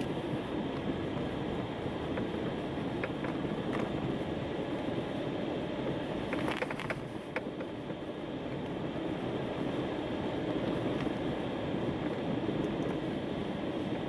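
Steady road noise of a car driving on a snow-covered road, tyres on packed snow, heard from inside the cabin. A brief cluster of sharp clicks comes about halfway through.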